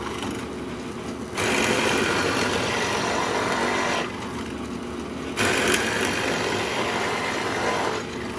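Drill press running with a 1-inch Forstner bit plunging into and boring out a wooden decoy body, a steady motor drone under the hiss of cutting wood. The cutting noise lulls twice for about a second, at the start and about four seconds in, while the motor keeps running.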